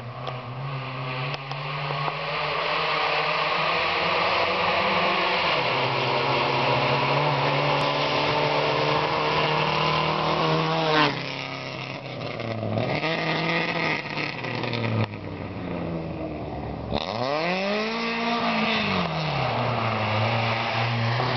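Volkswagen Amazon rally car's engine running hard as the car drives along a gravel road toward and past the listener, its revs climbing and dropping several times, with a sharp drop about halfway through.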